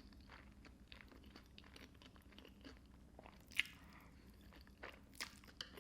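Faint chewing of creamy pasta topped with crushed hot Cheetos crumbs: soft crunching throughout, with two louder crunches, one a little past halfway and one near the end.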